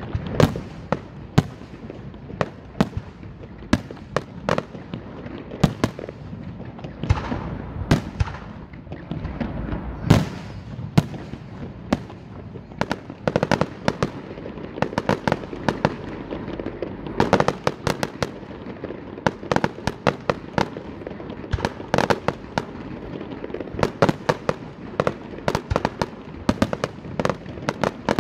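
Fireworks display: aerial shells bursting overhead in an irregular barrage of sharp bangs, at times several a second, over a continuous rumble, with the strongest bang about ten seconds in.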